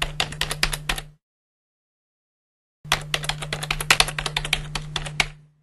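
Typing sound effect for text appearing letter by letter: rapid key clicks over a low steady hum. The first run stops about a second in, and a second run starts near three seconds and stops just before the end.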